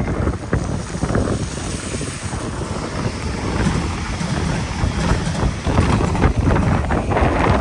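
Typhoon wind gusting across the microphone: a loud rushing, rumbling buffet that swells and eases unevenly.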